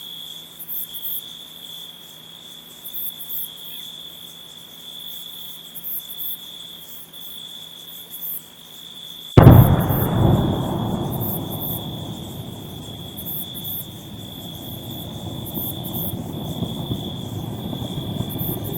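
Night insects chirping steadily, then about nine seconds in a sudden loud blast from a Popocatépetl volcanic explosion, picked up by the volcano's live-cam microphone, that fades slowly as a long rumble.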